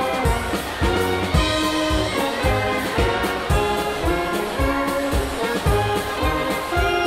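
German brass band (Blaskapelle) playing live: brass and woodwinds over drums in a steady beat, low bass notes alternating with short chords in an oom-pah pattern.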